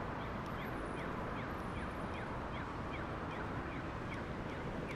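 City street noise, a steady hum, with a regular run of short falling chirps, about three a second.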